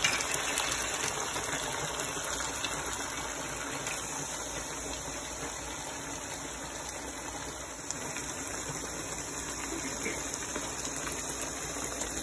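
Sausage, bell peppers and onions sizzling steadily in a frying pan under freshly added tomato sauce, a constant hiss with faint crackles.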